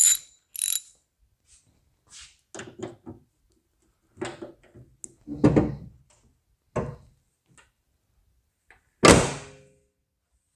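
A steel 2001–02 Chevy 2500HD hood on a Suburban being lowered, with a few lighter knocks and thuds. Then it shuts with one loud thunk and a short ring about nine seconds in as the latch catches.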